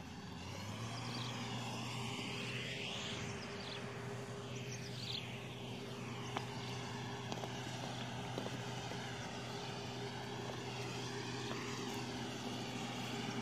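Hydraulic excavator's diesel engine running with a steady drone, coming up about a second in and then holding even.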